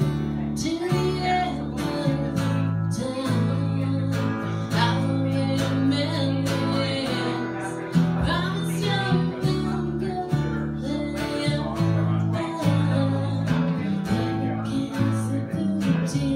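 Acoustic guitar strumming with an electric upright bass holding long low notes underneath, an instrumental stretch from a live acoustic duo.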